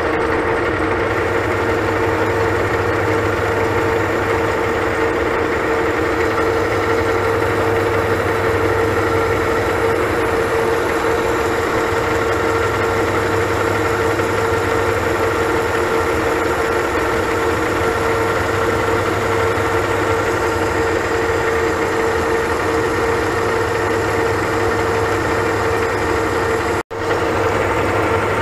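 Metal lathe running steadily with a constant hum while a carbide insert takes a turning cut along the spinning metal workpiece. The sound drops out for an instant near the end.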